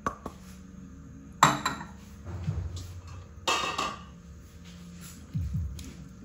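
Kitchenware clattering: two sharp clinks of dishes or utensils, about a second and a half in and again about two seconds later, each ringing briefly, then a softer low knock near the end as a wooden spatula goes into the pan.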